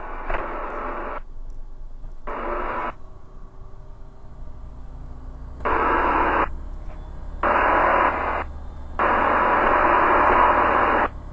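Light-aircraft cockpit intercom on the takeoff roll: engine and wind noise through the headset microphone comes in sharp-edged bursts, cut on and off about five times, over a low steady hum.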